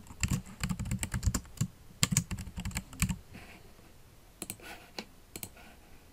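Typing on a computer keyboard: a quick run of keystrokes for about three seconds, then a few separate clicks.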